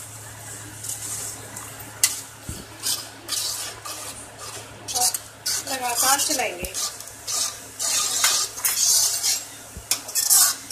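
A stainless-steel ladle stirring and scraping through thick masala gravy in a kadai, mixing in whisked curd, with a few sharp clinks of metal on the pan.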